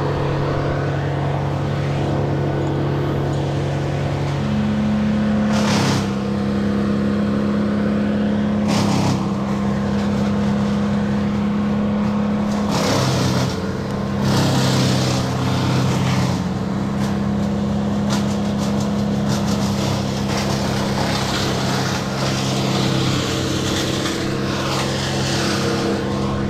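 An engine running steadily, its speed stepping up a few seconds in and dropping back about halfway through, with a few brief sharp noises along the way.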